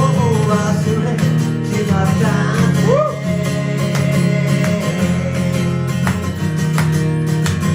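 Strummed acoustic guitar playing the instrumental close of a live song, with a sliding, wordless melody line over it in the first three seconds or so.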